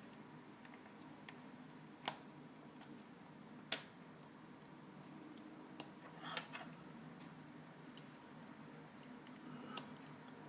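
Small repair tools tapping and clicking on the parts inside an open iPhone 4S: scattered faint, irregular clicks, with a brief scrape about six seconds in.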